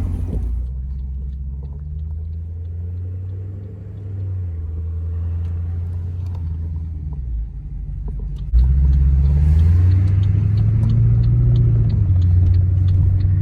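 Car engine idling through a straight-piped 2.5-inch exhaust with J-pipe mufflers and an X-pipe, a deep steady rumble. About eight and a half seconds in it gets suddenly louder, then the pitch rises slightly and settles back.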